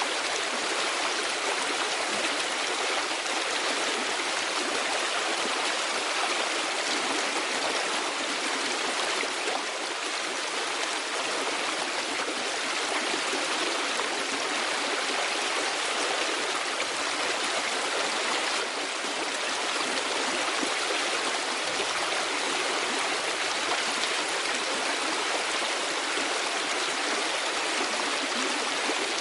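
Flowing stream: a steady, even rush of running water.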